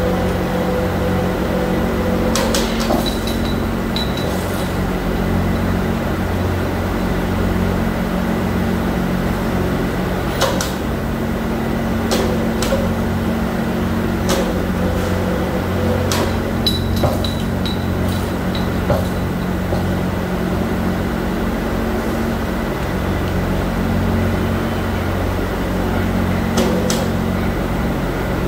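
Steady low hum of factory machinery, with sharp metallic clinks and knocks scattered through it, a few ringing briefly.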